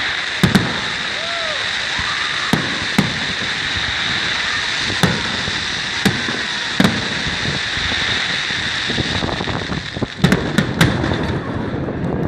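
Fireworks bursting: about a dozen sharp bangs at irregular intervals, a quick cluster of them near the end, over a steady hissing background.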